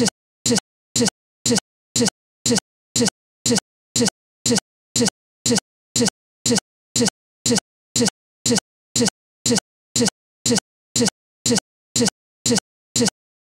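Digital playback stutter: the same split-second scrap of sound repeats exactly twice a second, with dead silence between repeats, as the recording hangs on a stuck frame.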